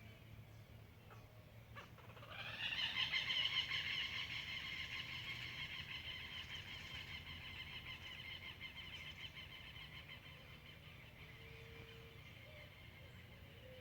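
A long, loud trilling bird call that sweeps up at the start, then holds one pitch and fades slowly over several seconds.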